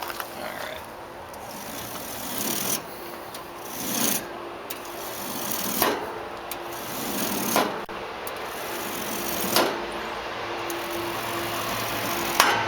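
A small piece of plastic comb scraped along the aluminium cooling fins of an A/C condenser, straightening them: about six rasping strokes, roughly one every two seconds, each swelling and ending in a sharp click. The comb piece is getting worn.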